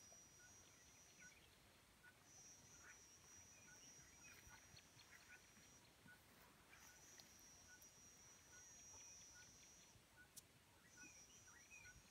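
Near silence: faint bush ambience. An insect's high, steady trill stops and starts every few seconds, a soft note repeats a little more than once a second, and birds chirp here and there.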